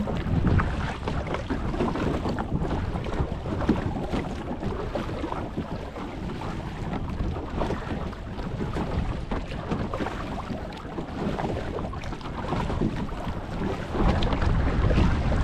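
Boat running across open water with heavy wind buffeting the microphone, a steady low rumbling rush that swells slightly near the end.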